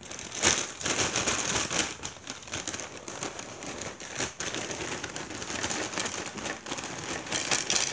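Plastic cereal bag crinkling as it is handled, with dry cereal rattling out of it in many small clicks.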